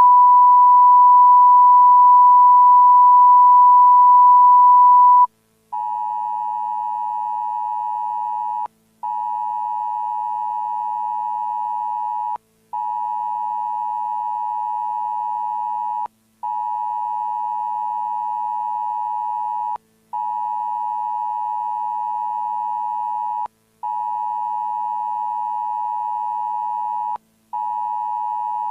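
Electronic broadcast test tone: a loud steady pure tone near 1 kHz for about five seconds, then a quieter, slightly lower tone that repeats in long blasts of about three and a half seconds with short breaks between them.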